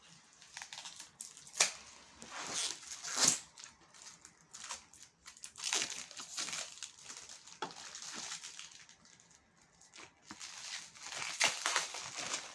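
Packaging being handled while unboxing: wrapping crinkling and tearing in irregular bursts, with sharp louder crackles about one and a half and three seconds in, and again near the end.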